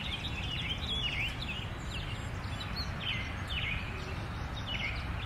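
Small birds chirping, short calls falling in pitch repeated every second or so, over a low steady rumble.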